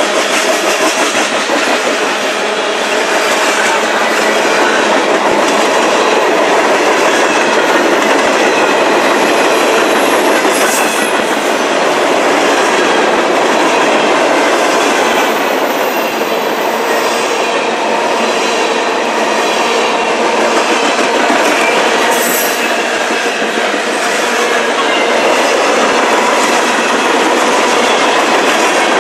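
Loud, steady rolling noise of freight cars (tank cars and covered hoppers) passing close by: steel wheels running on the rails, with the rattle of the cars.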